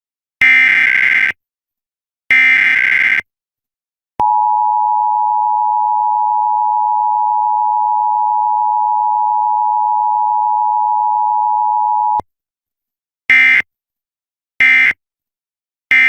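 Emergency Alert System required monthly test: the last two of the three screeching SAME data bursts of the alert header, then the two-tone attention signal held steady for about eight seconds and cut off sharply. No voice message follows; three short end-of-message data bursts come straight after.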